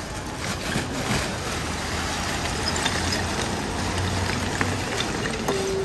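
Lumps of charcoal sliding and clattering out of plastic bags onto a metal grill firebox, with the bags rustling, over a steady low rumble.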